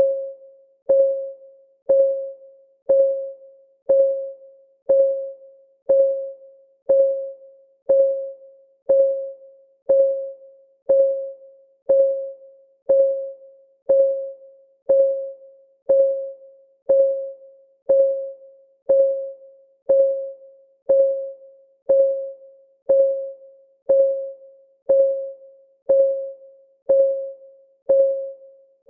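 Countdown timer's clock-tick sound effect, ticking steadily once a second. Each tick is a sharp click with a short, pitched ring that fades away before the next one.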